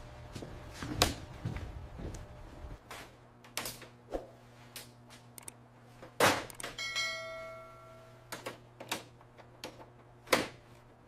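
Irregular sharp knocks and clicks of hard objects, a dozen or so. About six seconds in comes one loud metallic strike that rings on for a second or so like a struck bell. A low hum under the first few seconds stops.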